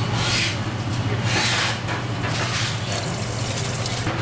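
Water from a kitchen tap splashing into a sink in short gushes, about one a second, over a steady low hum.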